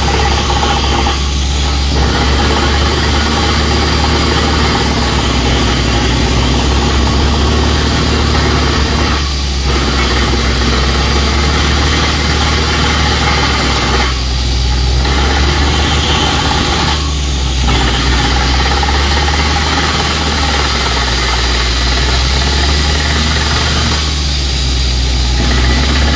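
Truck-mounted water well drilling rig running with its heavy diesel engine and machinery, a loud steady drone with strong low tones and a hiss of noise over it. The middle of the sound drops out briefly about five times.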